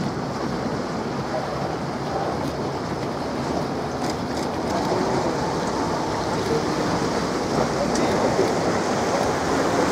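Steady rushing noise of wind on the microphone over a boat's motor running low, with faint murmured voices now and then.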